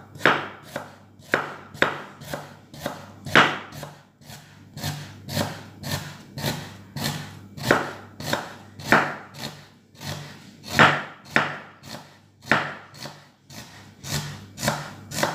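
Kitchen knife slicing an onion on a wooden cutting board: a steady run of chops, about two to three knife strikes a second.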